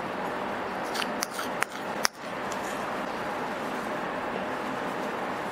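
Steady background hiss with a few faint, short clicks about a second in.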